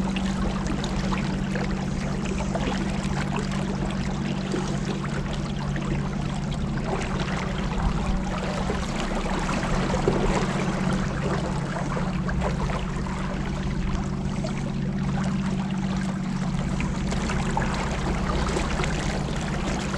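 Boat motor running steadily at cruising speed, a constant low hum over the rush of water past the hull.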